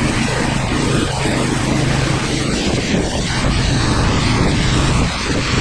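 2800 psi pressure washer running steadily, its engine hum under the hiss of the spray.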